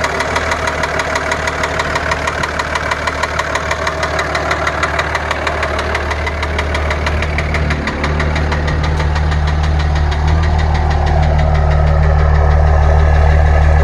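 2003 Dodge Ram 2500's 5.9 Cummins inline-six turbodiesel idling with a rapid, regular knock. From about eight seconds in the low engine drone grows louder and the knocking becomes less distinct. The owner takes the knock for a failing injector or possibly a bottom-end problem, appearing after the engine ran hot from a failed water pump.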